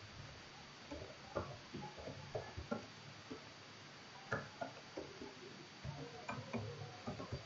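Computer keyboard keystrokes, faint irregular clicks in quick runs, typing numbers into a form.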